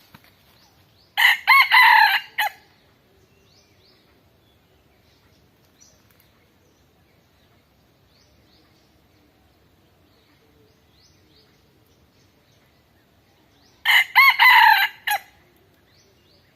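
A rooster crowing twice, each crow about a second long and the two about twelve seconds apart, with faint small-bird chirps between.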